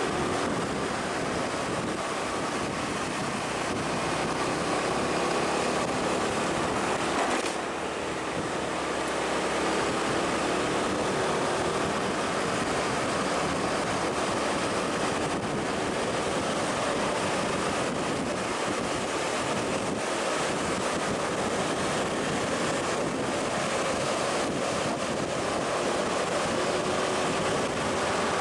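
Steady rushing wind noise on the microphone over a heavy vehicle's engine running; the engine's faint tone sinks slowly in pitch through the middle and climbs again near the end.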